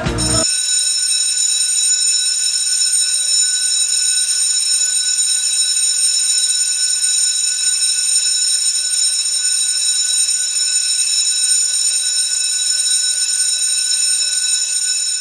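A loud, steady electronic tone, high-pitched with several pitches sounding together, held without a break after music cuts off about half a second in.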